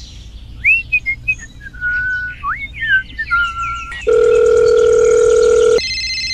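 A run of whistled chirps gliding up and down in pitch, then about four seconds in a steady phone tone, followed near the end by an electronic phone ringtone: an incoming call.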